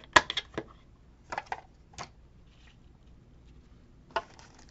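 Craft supplies being handled on a tabletop: a few scattered sharp taps and clicks with light rustling. The loudest tap comes right at the start, and a last single tap comes near the end.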